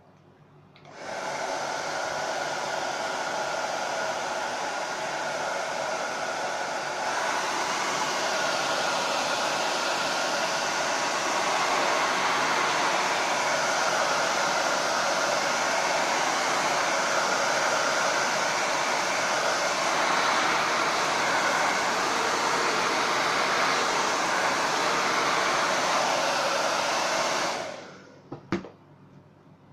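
Hot-air blower running steadily at the display of a MacBook Air, warming the adhesive around the screen panel while a plastic card is worked into the gap. It switches on about a second in, gets louder about seven seconds in, and cuts off near the end, followed by a couple of short clicks.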